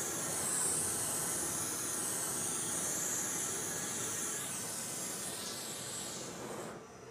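Propane torch flame hissing steadily as it is passed over wet epoxy to pop the surface bubbles, fading out near the end.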